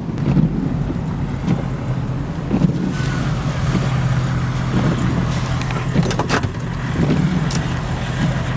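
A motor vehicle running with a steady low hum, with a few sharp clicks in the second half.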